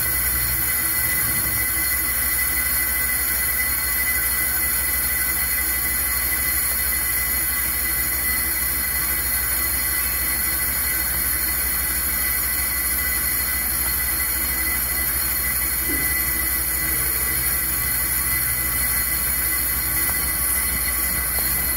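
On-car brake lathe turning a mounted brake rotor while its cutting bits machine the rotor faces: a steady high-pitched squeal from the cut over the lathe's low motor hum.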